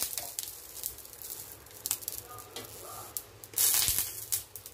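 Banana-leaf parcel sizzling faintly on a hot iron tawa. A short louder crinkle of the leaf comes just before the end, as the parcel is handled.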